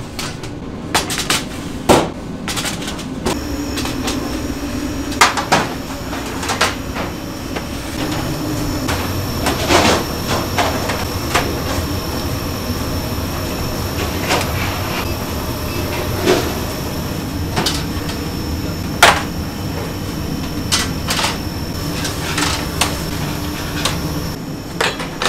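Bakery kitchen work noise: a steady machine hum with irregular knocks and clatter scattered through it.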